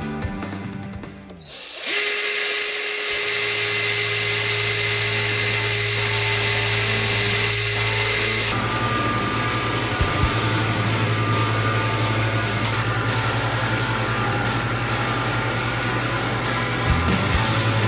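Electric motor of shop metalworking machinery running steadily with a high whine. About halfway through it gives way abruptly to a lower, steady hum.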